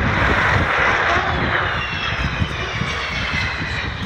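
Avro Vulcan bomber's four Rolls-Royce Olympus turbojets in a low flypast: a loud rushing jet noise, with a high whine that slides down in pitch through the second half.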